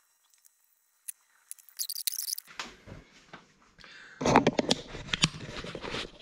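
Camera being picked up and carried by hand. After a near-silent start with a few faint clicks, rubbing, scraping and knocks build up, growing louder about four seconds in.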